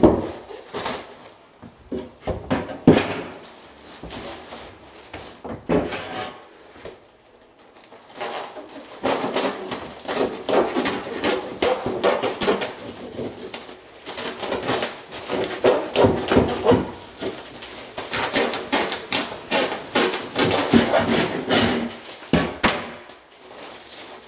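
Handsaw sawing through a 200 mm roll of loft insulation still in its plastic wrapping: runs of rapid back-and-forth strokes, with a short break about a third of the way in.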